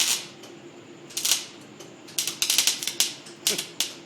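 Electric arc welder crackling and spitting in short, irregular bursts, the arc striking and breaking again and again under an inexperienced hand.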